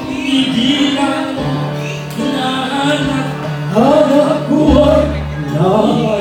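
A man and a woman singing a duet into microphones over band accompaniment, amplified through the stage speakers; the singing gets louder about halfway through.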